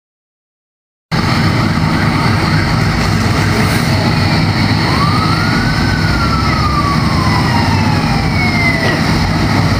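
Sound cuts in suddenly about a second in: a fire engine siren rises once, then winds down slowly over about three seconds, with a second falling siren tone near the end, over a steady low rumble of truck engines.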